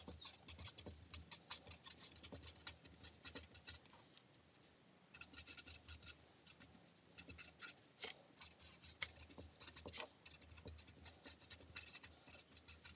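Faint scratching of a felt-tip marker across paper in quick, short strokes as words are written out by hand, with a brief pause about four seconds in.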